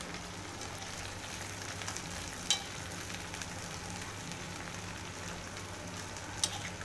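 Okra sizzling steadily as it fries in hot mustard oil in an aluminium kadhai, stirred with a steel spoon. The spoon taps sharply against the pan twice.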